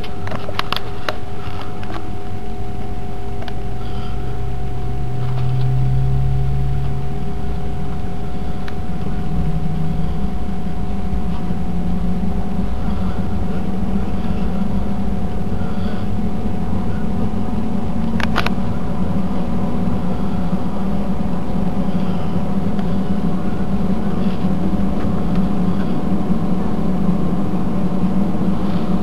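Airbus A319-111 cabin noise beside the wing, with the aircraft on the ground: the CFM56-5B jet engines running as a steady hum with two steady tones over a low rumble, which grows a little stronger after about ten seconds. A few sharp clicks near the start and one just past the middle.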